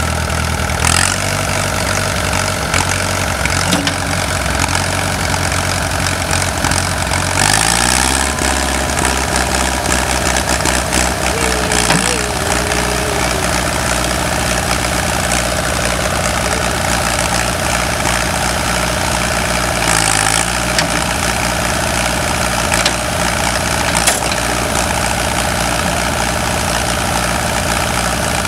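John Deere 1010 tractor engine running, its speed rising about a third of the way in and then holding steady, with a brief dip and recovery near the end. It runs on after a starter solenoid repair.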